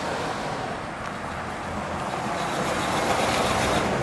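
1963 Oldsmobile Dynamic 88 convertible's V8 engine and tyres as the car drives up and past. The sound grows steadily louder as the car nears and is loudest near the end.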